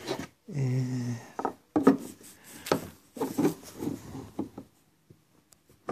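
Rubbing and knocking handling noise close to the microphone, as hands work the plastic helm cover and brush the phone. A short low hum comes about half a second in, followed by a string of uneven knocks and rubs.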